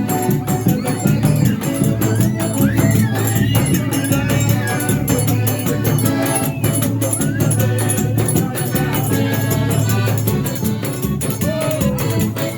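Forró music playing, with a quick, dense, steady percussion beat over a melody and bass line.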